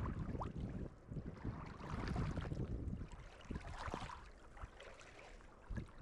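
Wind rumbling on the microphone, with small waves lapping and clicking against shoreline stones; the wind eases about halfway through.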